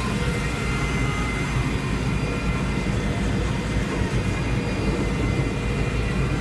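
Steady engine and road rumble heard from inside the cabin of a moving bus.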